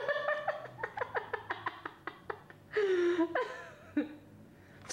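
A person laughing in a fast run of short bursts, about five a second, for the first two seconds. A longer, wavering vocal sound follows about three seconds in.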